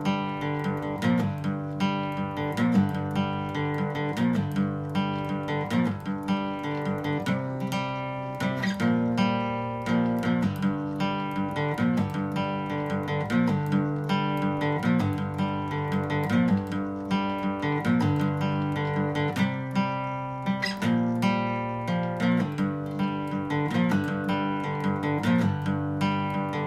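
Outro music: acoustic guitar strumming and picking a steady chord progression.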